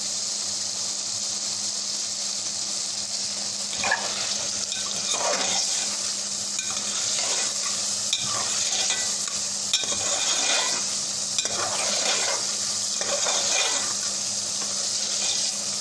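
Chicken and onion-tomato masala sizzling steadily in oil in a metal pot, its water cooked off, while a slotted metal spoon stirs it, with irregular scrapes and a few sharp clicks of the spoon against the pot.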